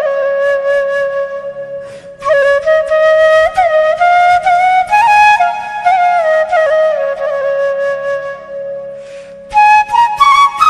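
Bamboo flute (bansuri) playing a slow, ornamented melody with sliding bends and long held notes, broken by short pauses about two seconds in and near the end. A soft low accompaniment repeats underneath.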